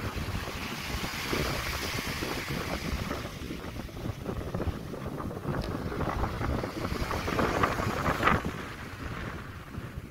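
Small waves breaking and washing up a beach, with wind buffeting the microphone. The hiss of the surf swells near the start and again, loudest, about eight seconds in.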